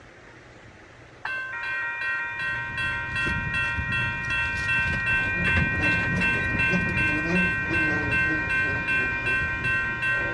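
Mechanical railroad crossing bells, a General Signals Type 2 and an older WCH bell, start ringing suddenly about a second in, struck in rapid, even strokes. This is the crossing activating for an approaching train. A low rumble builds underneath.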